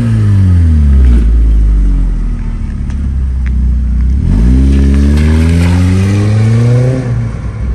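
Kia Sportage 2.0's four-cylinder engine through an aftermarket split dual exhaust with sport tips. The revs fall back to idle, it idles for a couple of seconds, then the revs climb steadily for about two and a half seconds before dropping again near the end.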